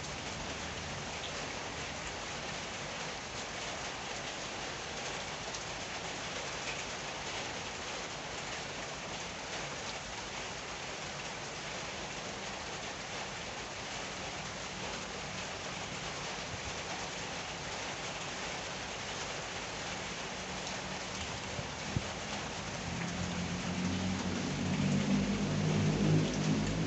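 Steady rain falling, an even hiss of drops on surfaces. Near the end a low hum with a steady pitch grows louder over the rain.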